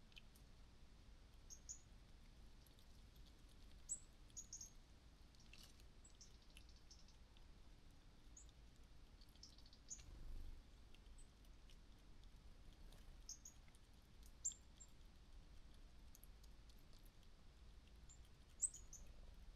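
Faint, scattered high-pitched chirps and squeaks from small animals, a few short notes at a time, over a near-silent background hiss.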